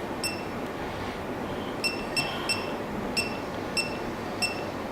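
Short, high electronic beeps from the WL CW2 alarm clock, about eight of them at uneven intervals, each a key-press confirmation as the alarm is set.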